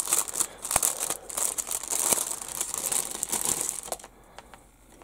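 Clear plastic bag crinkling as a plastic model-kit sprue is pulled out of it, with small sharp crackles throughout; the crinkling stops about four seconds in.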